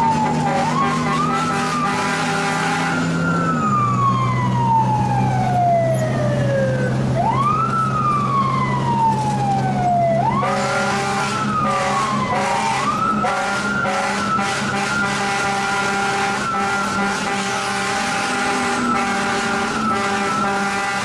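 Fire truck's mechanical siren heard from inside the cab. It winds up quickly and coasts down slowly several times, then holds a steady high pitch for about the last eight seconds. The truck's engine drones underneath.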